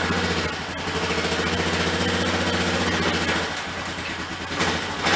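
Yamaha ATV engine running at low speed as the quad is driven forward onto lift-jack pads. The engine note eases off about three and a half seconds in as it comes to a stop.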